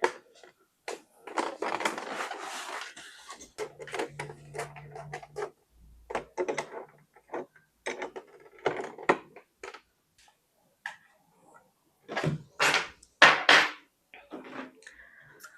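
Monitor and monitor arm being handled: irregular knocks and clicks with some rustling, the loudest knocks a little before the end.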